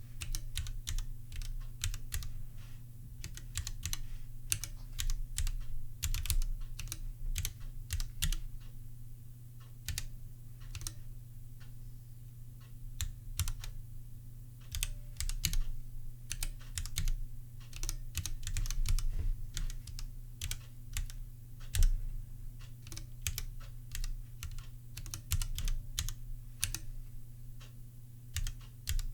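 Typing on a Bastard Charybdis Nano, a 3D-printed split ergonomic mechanical keyboard with Gateron Yellow linear switches. The keystrokes come in quick, irregular runs with short pauses, over a steady low hum.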